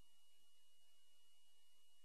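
Near silence: a faint steady hiss with a thin, steady high-pitched tone, and no sound of the wrestling.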